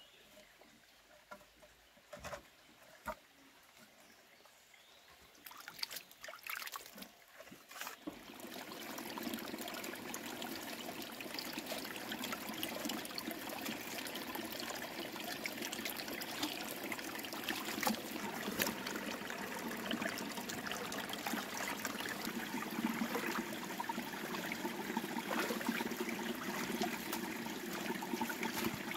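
Water trickling and running steadily, setting in about eight seconds in after a few light knocks.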